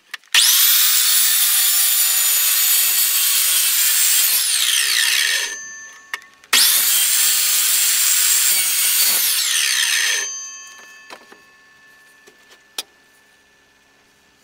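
Electric miter saw run twice, cutting through a 2x4. Each time the motor starts abruptly, runs steadily for a few seconds, then winds down with a falling whine after the trigger is released. A few light clicks follow near the end.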